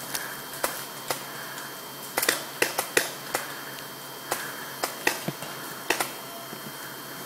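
Footsteps on dry leaf litter and twigs: scattered sharp crackles and snaps, irregular and sometimes in quick pairs.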